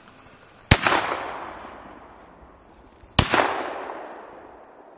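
Two shotgun shots about two and a half seconds apart, each fading away in a long echo: a hunter firing twice at a ruffed grouse.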